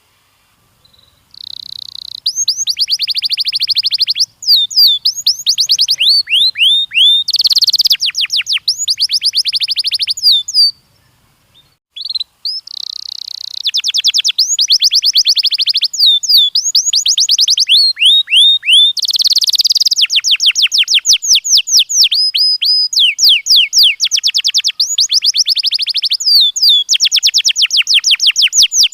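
Domestic canary singing: fast trills of rapid repeated high notes and rolling phrases, with a short pause about eleven seconds in.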